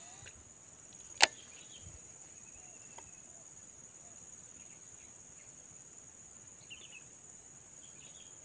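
Steady high-pitched insect chorus, like crickets, with one sharp click about a second in.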